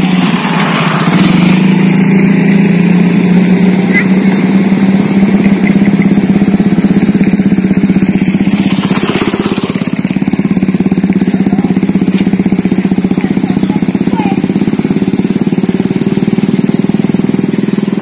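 A Bugis pitu-pitu kite's singing bow (sendaren) humming in the wind high overhead: a loud, steady, low drone with a fast pulsing flutter.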